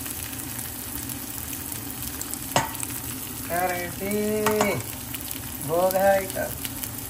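Paneer and soya chaap sizzling on a hot grill, a steady frying hiss. A sharp tap comes about two and a half seconds in, and two short hummed voice sounds follow it.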